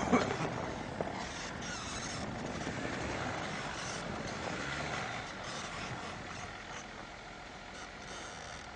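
SUV driving off-road over snow: steady engine and tyre noise, with two sharp knocks in the first second.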